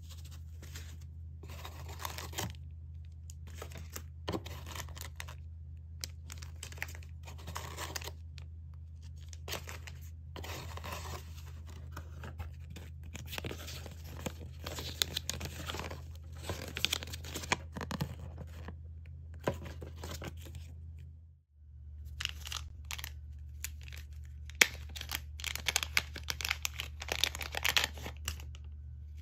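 Foil zip-lock parts bags and a paper instruction booklet being handled, rustling and crinkling in short irregular bursts over a steady low hum. The hum briefly cuts out about two-thirds of the way through.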